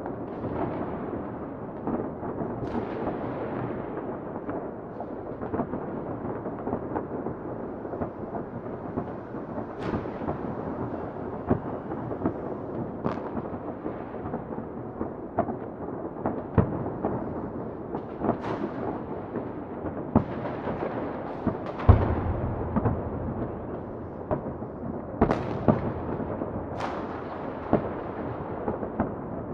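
Distant fireworks and firecrackers going off: a continuous rumble of crackling, with sharp bangs at irregular intervals and one louder, deeper boom near the end.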